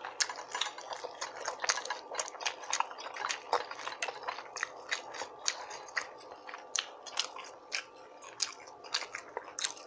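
Close-miked chewing of rotisserie chicken: a steady run of quick, irregular wet mouth clicks and smacks.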